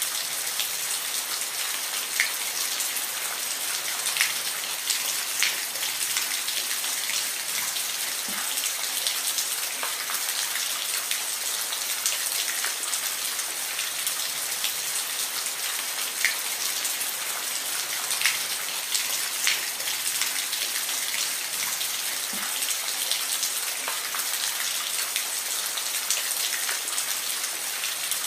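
Steady rain falling, a constant hiss with individual drops ticking sharply here and there.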